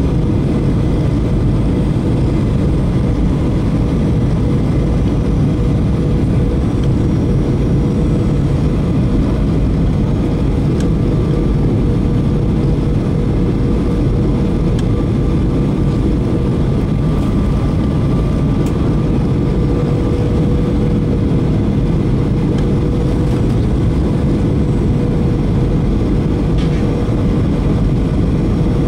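Cabin noise of a Boeing 737-800 on approach, heard from a window seat beside the wing: the steady rumble of airflow and the CFM56-7B turbofan engines, with a steady engine hum running through it.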